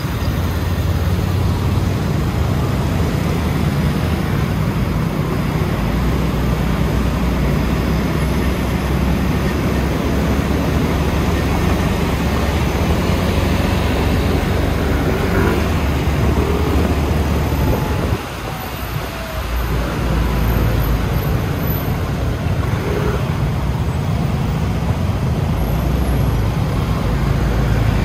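City traffic noise heard from a moving scooter: a steady low rumble of engines and road that drops off briefly about two-thirds of the way through, then returns.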